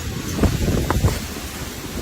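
Strong wind buffeting the microphone in amateur tornado footage: a steady rushing noise with a heavy low rumble and a few harder gusts about half a second to a second in.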